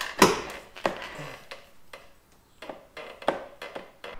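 Hard parts being handled, most likely the removed front indicator unit: a run of irregular sharp clicks and light knocks. The loudest knock comes right at the start, and there is a brief lull around the middle.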